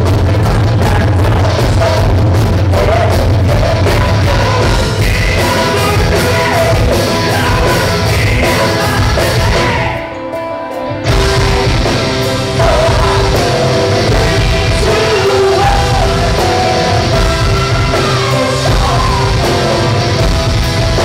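Live rock band playing loud: electric guitars, bass, drums and keyboard, with a singer singing and yelling over them. About halfway through, the drums and bass drop out for about a second, then the full band crashes back in.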